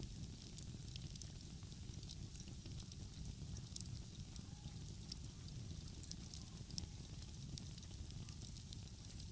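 Wood fire crackling, with frequent short sharp pops and snaps, over a steady low rumble.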